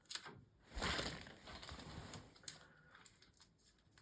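Old electrical tape being pulled and peeled off its roll, its dried-out outer layer stripped away. There is a burst of rustling noise about a second in, softer rustling after it, and a sharp click past the halfway mark.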